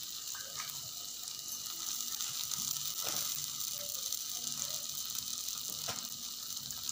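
Steady sizzling hiss from the stove: milk at a foaming boil in a steel pot and sabudana tikkis frying on a tawa in a little oil. A couple of light knocks come about three seconds in and near the end.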